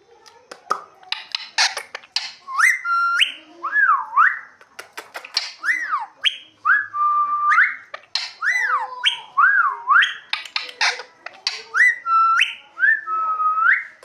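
Indian ringneck parakeet whistling: a run of short whistles, about one a second, each gliding up and down in pitch, with harsh squawky notes between them.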